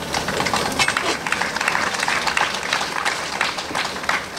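Audience applauding: a steady spatter of many hands clapping.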